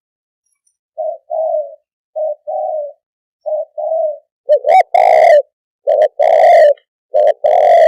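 Spotted dove cooing in repeated two-note phrases, a short coo followed by a longer one, about one phrase a second. The calls begin about a second in and become much louder about halfway through.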